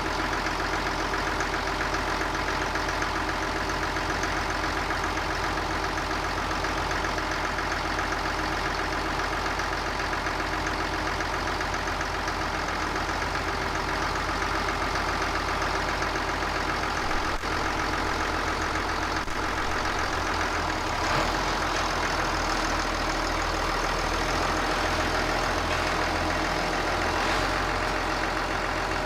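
Diesel engine of a piece of digging equipment running steadily at constant speed, with one sharp click a little past halfway.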